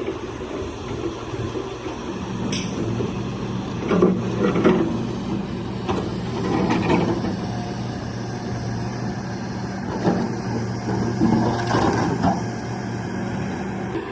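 Kobelco hydraulic excavator's diesel engine running steadily under load, with several louder rough bursts of rock grinding and clattering as the bucket digs, and one short sharp click early on.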